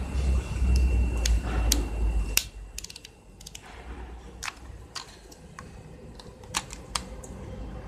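Scattered small sharp clicks and taps at irregular intervals, with a low rumble and a steady thin high whine in the first two and a half seconds.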